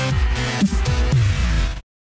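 Electronic dance music with a steady beat of about two beats a second and a heavy bass. It cuts off abruptly near the end, leaving dead silence.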